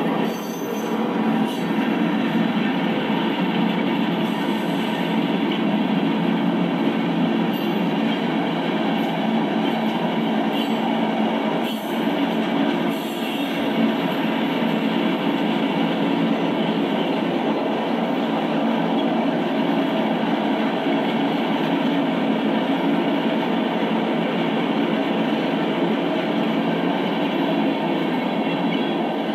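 Freight train's tank cars rolling past at close range: steady noise of steel wheels on rail with the rattle of the cars, unbroken throughout.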